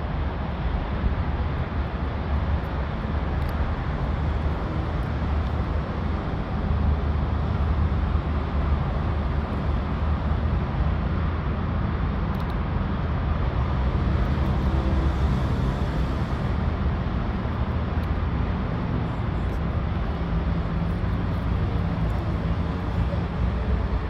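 Steady low rumble of urban outdoor background noise, like distant street traffic, without a break.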